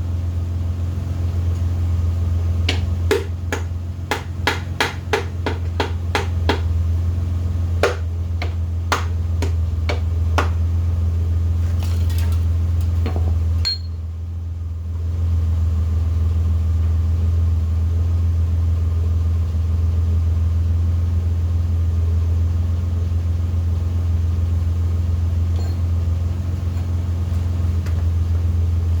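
Light hammer taps on metal engine parts, two quick runs of about two or three taps a second over roughly the first thirteen seconds, tapping loose an RB20DET's connecting rod caps and pistons. A steady low hum runs underneath, dipping briefly near the middle.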